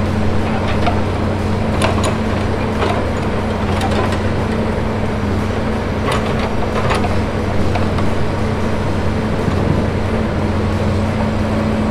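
Diesel engine of a knuckleboom log loader running steadily under a working load, with a few sharp knocks now and then in the first half.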